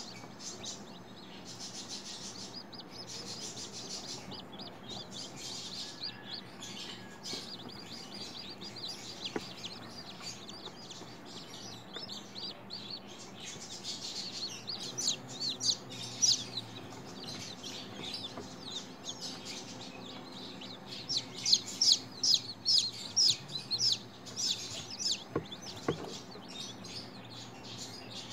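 Newly hatched chicken chicks peeping: short, high-pitched peeps, scattered at first, then coming in quick runs through the second half, over a faint steady hum.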